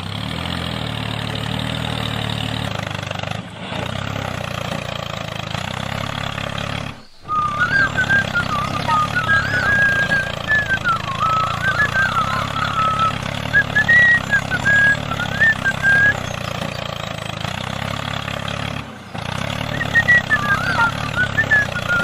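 Steady, low diesel-tractor-like engine running, broken by short dropouts about three and a half, seven and nineteen seconds in. From about seven seconds in, wavering high chirps play on top.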